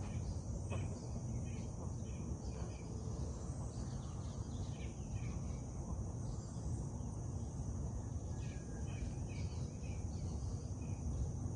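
Outdoor ambience: a steady high drone of insects, scattered short bird chirps, and a low steady rumble underneath.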